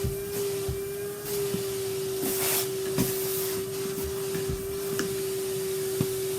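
Vacuum cleaner running with a steady hum, with scattered clicks and knocks and a brief louder hiss about two and a half seconds in.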